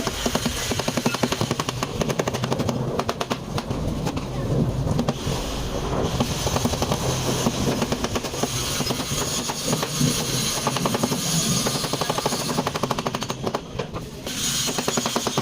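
A power tool hammering rapidly and evenly, many sharp blows a second, with short pauses partway through and near the end.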